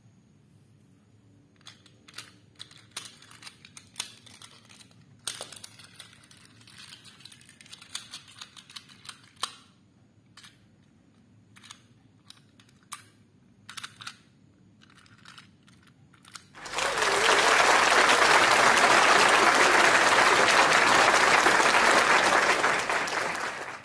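Light clicks and knocks of small die-cast toy engines being handled and set onto plastic toy track. Then a loud, steady rushing hiss comes in suddenly and cuts off about seven seconds later.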